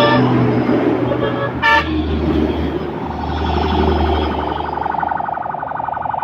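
Electronic horn sound effects from a toy tanker truck: a short honk at the start and another about 1.7 s in, then a steady buzzing horn tone from about 3 s on.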